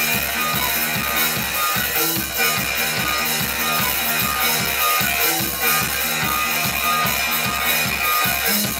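Live instrumental rock trio of guitar, bass and drums playing a driving, repetitive groove: a short bass figure repeats rapidly and evenly under steady drums, with held guitar tones ringing above.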